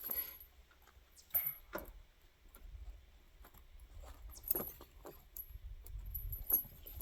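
Metal ATV tire chain clinking and jingling now and then as its hooks are worked loose by hand.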